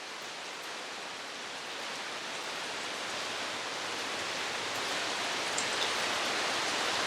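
Steady rainfall on the rainforest, an even hiss that grows gradually louder.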